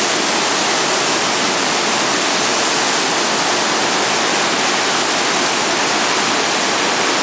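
Waterfall in a narrow rock gorge: water pouring through carved stone channels makes a loud, steady rush that does not change.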